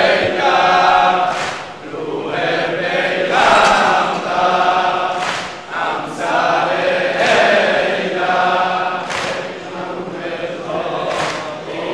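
A large crowd of men chanting a noheh, a Shia mourning lament, in unison, with rhythmic chest-beating (sineh-zani) slaps about every two seconds keeping the beat.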